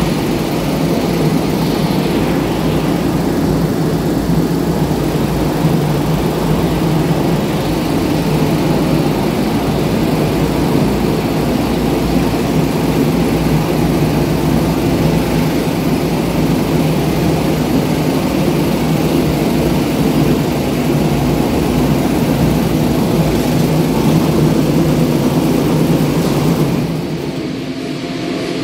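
Rail-mounted carpet-washing machine running, its motor and scrubbing brushes giving a steady mechanical drone as it works over a soapy rug. The sound drops and thins near the end.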